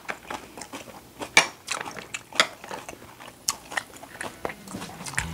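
Close-up chewing of a mouthful of sashimi and rice wrapped in raw spring cabbage, with irregular wet clicks and crunches.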